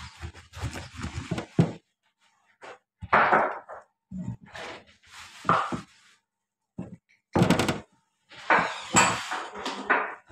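Meat cleaver chopping raw meat on a cutting board: a series of irregular heavy chops and thunks, some in quick runs and others a second or two apart.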